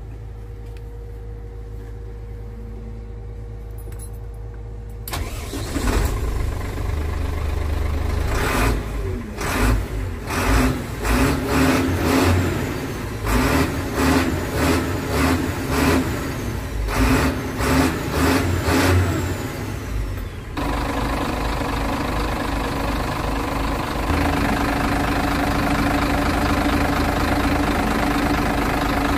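Sinotruk HOWO tractor truck's six-cylinder diesel engine starting about five seconds in, heard from inside the cab. Its speed then rises and falls in quick repeated swells for several seconds before it settles. Near the end it idles steadily and louder.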